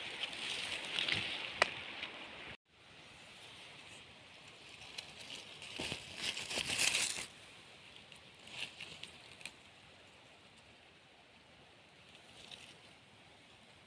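Rustling and crackling of forest-floor litter (leaves, needles and twigs) being disturbed in short bouts, with a few sharp snaps, busiest about six to seven seconds in and fainter, scattered ticks after that. The sound cuts out completely for a moment about two and a half seconds in.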